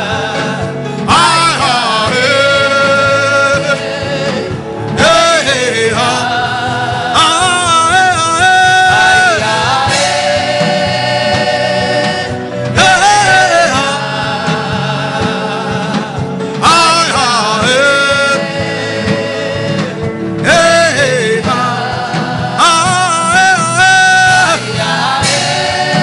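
Worship chant sung by one voice in long phrases, with held notes that waver and turn, over a steady sustained low accompaniment.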